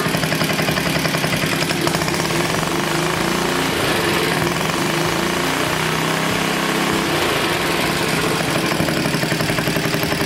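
Vintage Briggs & Stratton single-cylinder lawn-mower engine on a homemade motorized tricycle, idling steadily.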